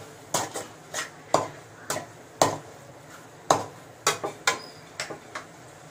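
Metal spatula clanking and scraping against a metal kadai as a thick onion-tomato masala is stirred and sautéed. There are about a dozen irregular strokes, each a sharp clink with a short ring.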